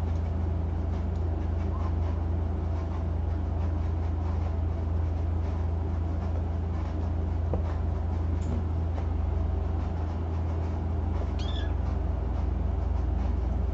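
A steady low hum throughout, with one short, high-pitched kitten mew near the end.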